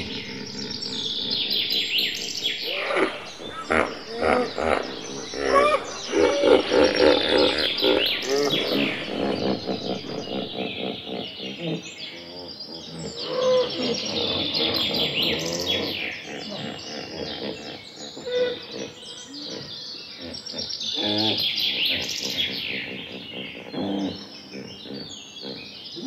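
A chorus of many birds chirping and calling, full of quick falling whistled notes, with some lower calls mixed in.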